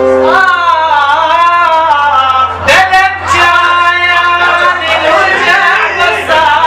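Male vocalist singing an Arabic mawwal: long, wavering melismatic notes that slide up and down in pitch, over instrumental accompaniment.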